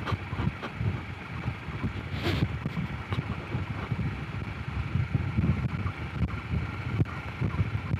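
Honda CRF250 Rally's single-cylinder four-stroke engine running at a steady pace while riding over gravel, with wind buffeting the microphone. A brief hiss about two seconds in.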